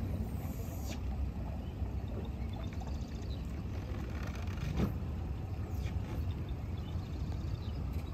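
Engines idling, a low steady rumble.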